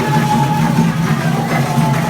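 Loud music playing.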